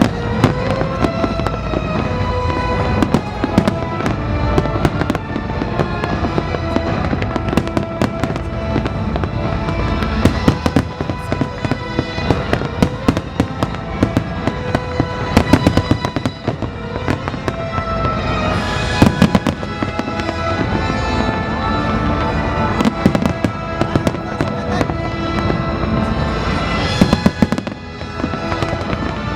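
Fireworks display: a steady, irregular run of bangs and crackles, with the loudest cracks about 10, 15, 19 and 27 seconds in, over loud music playing throughout.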